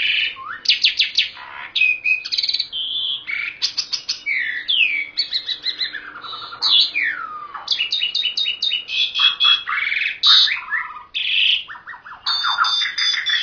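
Caged songbird singing a loud, continuous, varied song: fast runs of repeated notes, sharp down-slurred whistles and trills, with a brief pause near the end.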